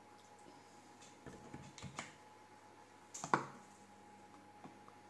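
A few light clicks and taps of plastic kitchenware as olive oil is spooned into a plastic shaker cup: a small cluster in the first half, the sharpest tap a little past three seconds in.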